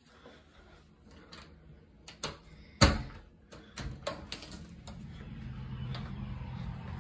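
A door being unlatched and opened: a few clicks and a sharp knock about three seconds in, more clicks about a second later, then a steady low hum from outdoors that grows as the door swings open.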